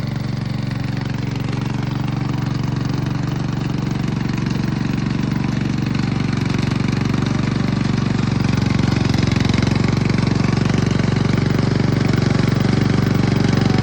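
Remote-control hybrid lawn mower's 7.5-horsepower petrol engine running steadily under load as it mows, with a rapid even pulsing; it grows slightly louder near the end.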